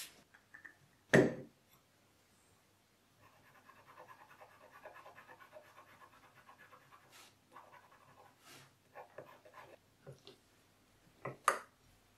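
A single thump about a second in, then a colored pencil scribbling back and forth on paper: a quick, even scratching that runs for about four seconds. A few light taps follow, and there is a sharp click near the end.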